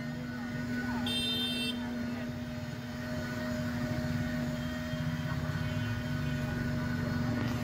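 Steady street background: a constant low hum with a traffic-like rumble, and a short high electronic beep about a second in.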